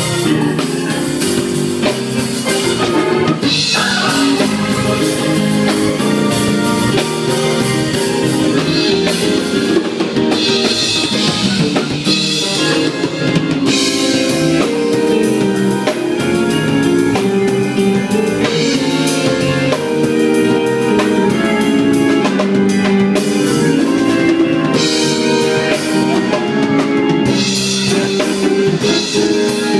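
Live gospel band jam: a Hammond organ plays chords and lines over a full drum kit. Cymbals wash in and out every few seconds.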